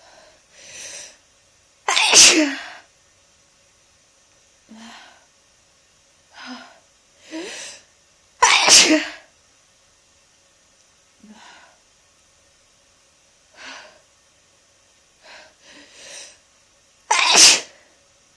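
Three loud, violent sneezes from a person with a heavy head cold, several seconds apart, each led up to by short gasping in-breaths.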